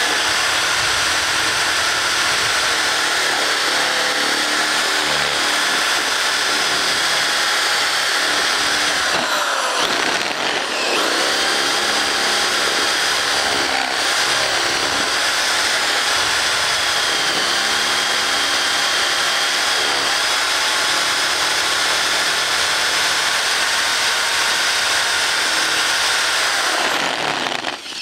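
Power drill boring through a stack of paperback books, shredding the paper as it goes. It runs steadily, slowing and picking up again about ten seconds in, and slowing once more just before the end as the bit breaks through the top book.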